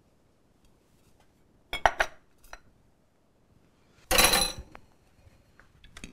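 Kitchen clatter of dishes and cutlery: a few sharp clinks about two seconds in, then a louder metallic clatter with a brief ring about four seconds in.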